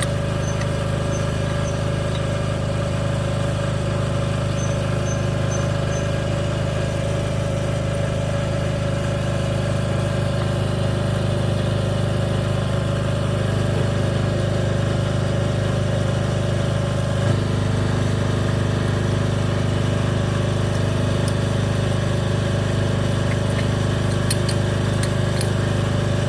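An engine idling steadily at a constant pitch, with a brief click and a slight change in tone about two-thirds of the way through.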